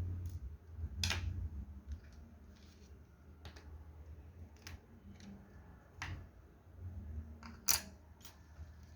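Small hand tools clicking against the inside of a smartphone being taken apart: about five sharp clicks one to two seconds apart, the loudest near the end, over a low handling rumble that is strongest near the start.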